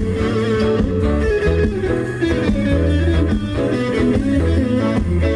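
Live ska band playing, with electric guitar to the fore over a moving bass line and drums.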